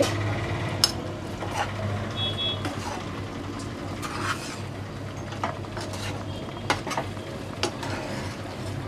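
Spoon stirring chicken curry in a metal pan, with scattered clinks and scrapes against the pan over a steady low hum.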